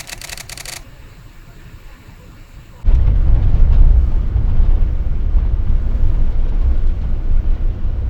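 Light clicking stops under a second in. About three seconds in, a loud, deep rumble starts suddenly and keeps going.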